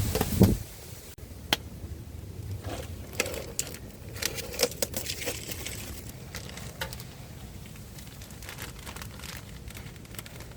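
Wind buffeting the microphone for about a second, cut off abruptly. Then a run of irregular clicks, taps and crinkling rustles from things being handled, thinning out after the middle.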